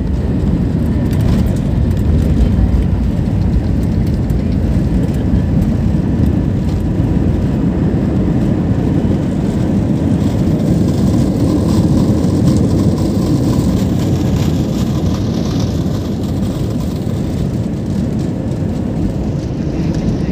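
Airliner cabin noise during the landing rollout: a loud, steady low rumble of the engines and wheels on the runway as the plane slows. It swells a little about halfway through, then eases slightly.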